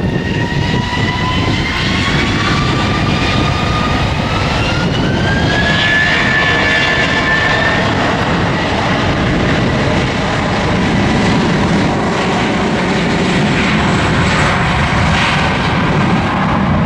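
Jet airliner engines running loudly at the airport, a steady roar with a whine that climbs in pitch over the first several seconds and then holds steady.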